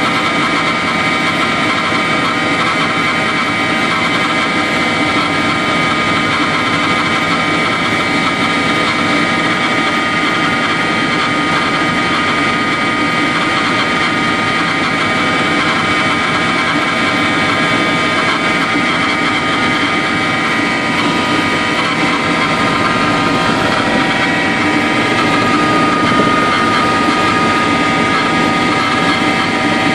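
Tour helicopter in flight heard from inside the cabin: engine and rotors running at a steady, unchanging level, with several high whining tones over a constant rumble.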